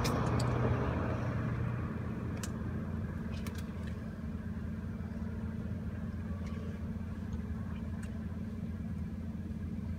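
Car engine idling, heard from inside the cabin as a steady low hum, with a few faint clicks.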